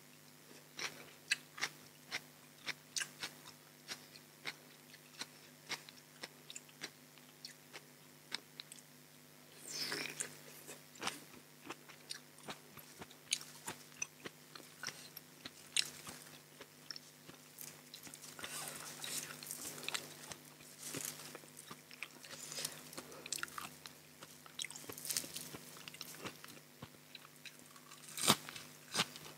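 Eating sounds: a person biting and chewing crisp raw vegetables and leafy greens, with sharp crunches about every half second. A denser run of crunching comes about ten seconds in and again around nineteen seconds, and one loud crunch near the end.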